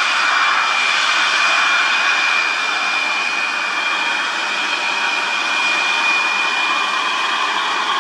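Engine of a heavily loaded light truck under load on a hill road, a steady mechanical noise with a high whine held through it.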